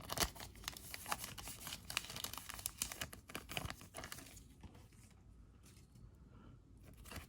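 Crinkling and rustling of plastic card packaging as trading cards are handled, busy for the first few seconds and dying down about halfway through.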